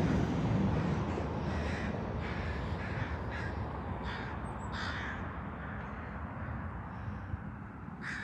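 Crows cawing, a series of short caws spread over several seconds, over a low background rumble that fades in the first second or so.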